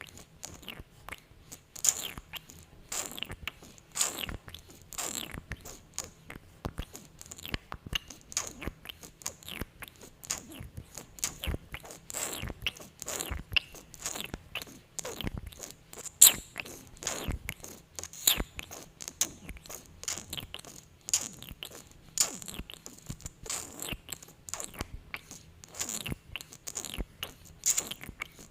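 Close-miked sticky lip sounds from glossed lips: many short wet clicks and pops as the lips smack and pull apart, coming irregularly.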